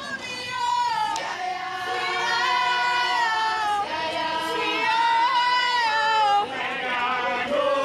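A group of women singing together, in long held notes that waver slightly in pitch.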